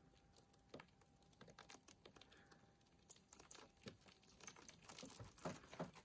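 Faint scattered clicks, taps and rustles of a truck-cap tent's fabric and fittings being pulled and fastened, sparse at first and busier in the second half.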